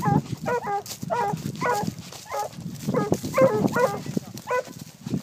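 Porcelaine hound giving tongue in a quick, uneven run of short, high yelping barks, about two or three a second. It is the voice of a tracking hound working a wild boar's scent on a long lead.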